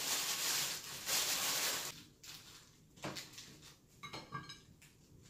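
Rustling of small treat bags being handled: two long rustles in the first two seconds, then a few fainter, shorter handling sounds.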